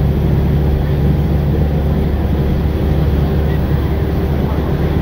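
Steady low engine and road rumble of a moving vehicle, heard from inside its cab.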